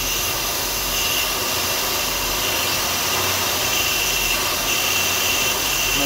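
Audi 1.8 TFSI four-cylinder turbo petrol engine idling erratically and hunting. The rough idle comes from an intake air leak (fault code P2279), which the mechanic puts down to a ruptured diaphragm in the PCV breather valve.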